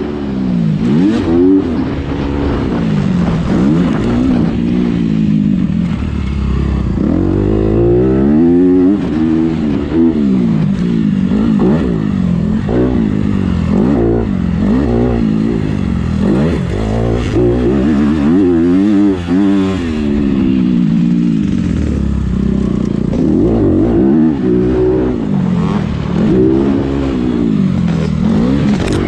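Dirt bike engine heard from on the bike, revving up and dropping back again and again as the rider accelerates, shifts and rolls off around the track.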